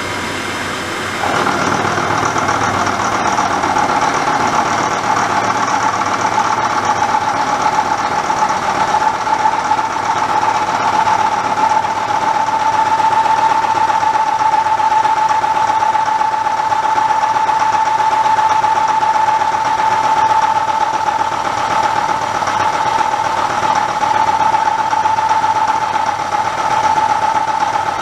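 Milling cutter taking a light roughing cut along the side of a steel-bodied quick-change tool block, about fifty thousandths deep, over the running spindle. The cut starts about a second in and holds as a steady whine.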